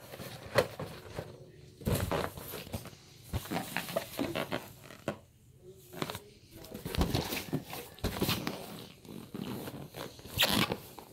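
Latex balloons being grabbed, pressed and rubbed by a capuchin monkey: irregular scuffs, rubs and knocks.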